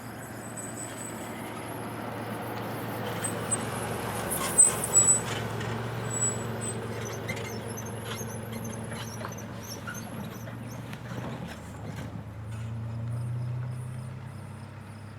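Low, steady rumble of distant diesel locomotives, growing a little stronger near the end, with a few sharp clicks about four and a half to five seconds in.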